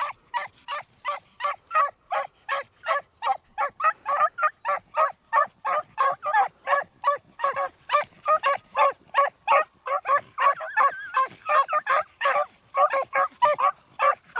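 A pack of beagle hounds baying as they run a rabbit's scent line, giving rapid, overlapping barks about three or four a second.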